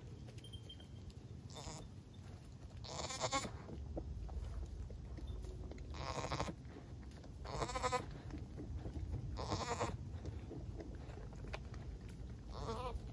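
Goats bleating: six separate pitched bleats of about half a second each, spaced a second or two apart.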